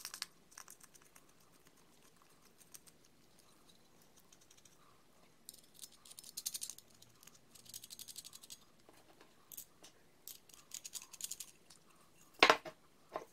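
Small metal parts clicking and rattling in several short bursts as hex nuts and a brass threaded insert are spun by hand onto a 1/4-inch bolt held in a wooden jig block. One louder knock comes near the end.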